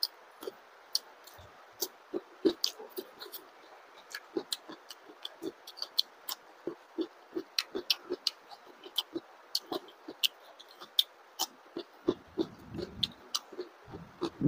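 Close-miked eating sounds: wet chewing and lip smacks as a man chews a mouthful of food eaten by hand, heard as irregular sharp clicks several times a second.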